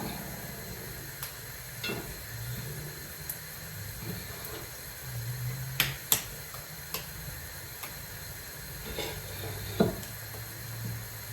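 Cottage-cheese pancakes (syrniki) sizzling steadily in a frying pan, with scattered light clicks and knocks of kitchen utensils; two sharp clicks come about six seconds in and another near the end.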